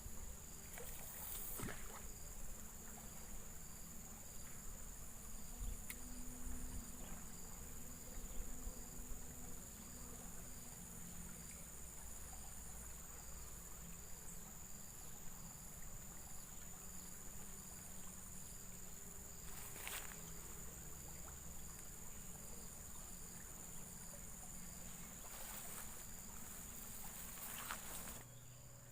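Steady high-pitched insect chorus at the riverbank: a continuous whine with evenly repeating chirps, over a low rumble. A few brief noises stand out about twenty seconds in and near the end.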